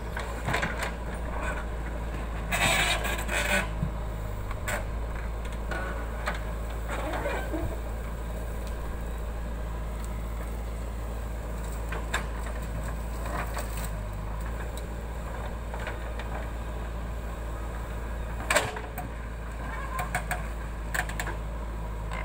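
JCB 3DX backhoe loader's diesel engine running steadily while it digs and loads, with intermittent knocks and clatter from the bucket and the soil. The loudest is a burst of clatter about three seconds in, and a sharp knock comes about eighteen and a half seconds in.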